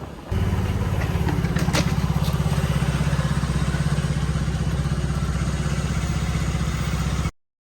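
An engine running steadily with an even pulse, starting abruptly and cutting off suddenly near the end.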